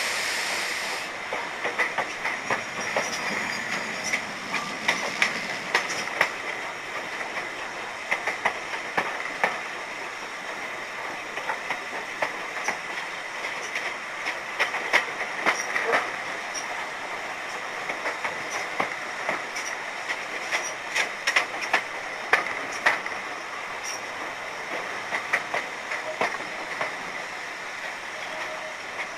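Heritage steam train running along the line, its wheels clicking and knocking irregularly over the rail joints over a steady running noise and a faint steady high whine. A hiss of steam stops about a second in.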